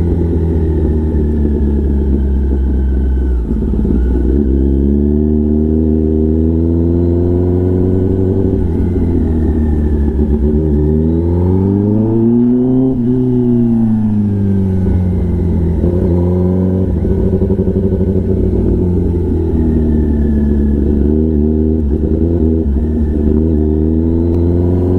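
Kawasaki ZX-10R's inline-four engine running at low revs through an SC-Project exhaust. The pitch rises smoothly once about halfway through and falls back.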